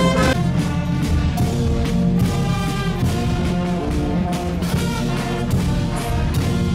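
Music played by brass instruments over a drum beat, with held chords that change every second or so.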